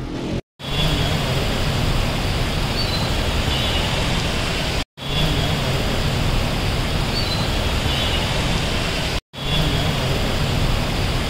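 Muddy floodwater rushing and churning in a flooded street: a steady, dense noise. It drops out for a split second twice, the same few seconds repeating each time.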